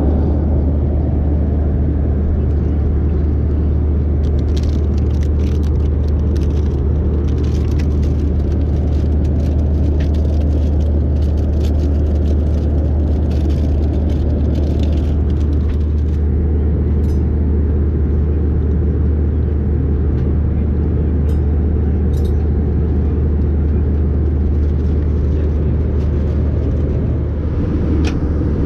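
Steady low rumble of an Airbus A320-200 cabin in cruise, the engine and airflow noise heard from an economy seat, with scattered light clicks and rattles in the first half.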